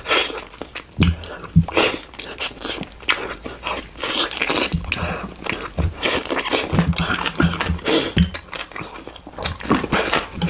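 Close-miked chewing and biting of food, an irregular run of wet mouth smacks and clicks.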